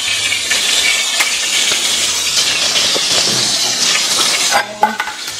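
Hot oil sizzling steadily in a steel pan as a tempering of mustard seeds, asafoetida and turmeric fries. The sizzle cuts off about four and a half seconds in, leaving a few light clatters.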